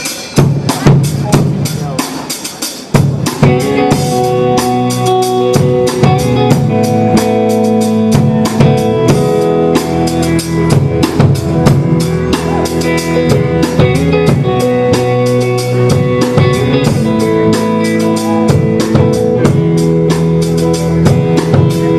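Band music with a drum kit keeping a steady beat under bass and sustained chords, the full band coming in about three seconds in.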